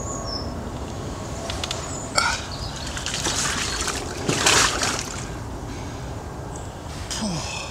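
Wet splashing and rustling as a big carp is handled on a wet unhooking mat, in a few irregular rushes, the loudest about four and a half seconds in.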